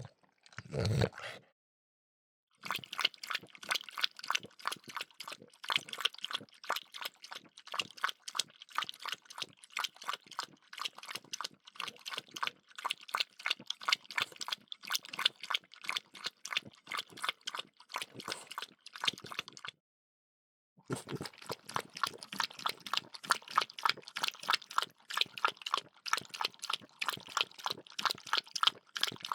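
A bulldog lapping water from a bowl: a fast, steady run of wet laps, several a second, stopping twice for about a second.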